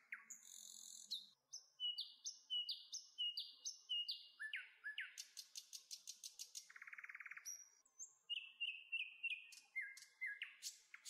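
Songbirds singing: a busy run of varied high chirps, rising whistled notes and quick repeated trills, with a short buzzy trill about seven seconds in.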